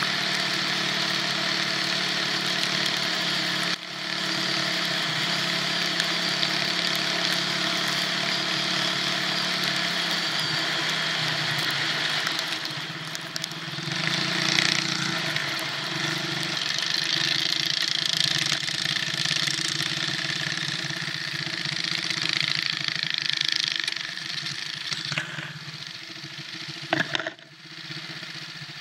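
Cyclekart's small engine running steadily as the kart drives through snow, then rising and falling in pitch as the throttle changes. Near the end there is a sharp click, and the engine drops back to a quieter, lower run.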